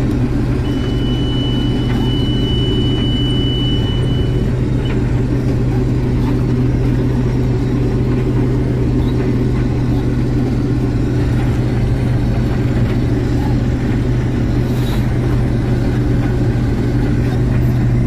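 Combine harvester running steadily under load as its pickup header gathers a swath, heard from inside the cab: a constant low engine and machinery drone. A thin, steady high-pitched tone sounds for about four seconds near the start.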